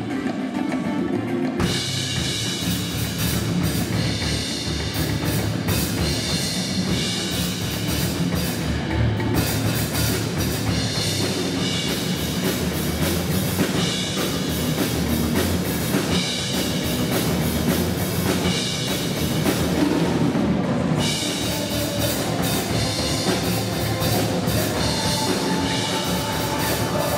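Acoustic Pearl drum kit played continuously in a fast, busy pattern of bass drum, snare and toms, with the cymbals and hi-hat coming in about a second and a half in.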